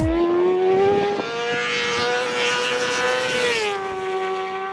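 Honda Fireblade CBR1000RR-R SP inline-four engine running hard with a steady, whining note. The note climbs slowly, then drops a step about three and a half seconds in and holds, with a rush of hiss rising over it just before the drop.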